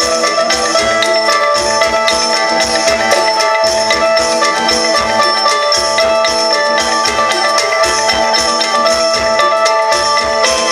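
Isan-style instrumental music led by a phin lute melody over a steady, even drum-and-percussion beat.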